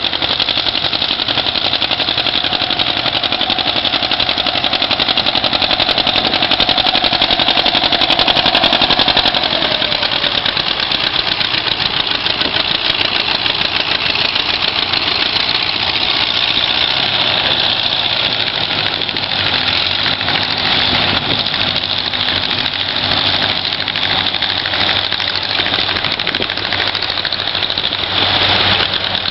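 Several vintage farm tractors running under load as they pull moldboard plows through the soil, passing close one after another. The engines run steadily, and one engine's pitch drops about a third of the way in.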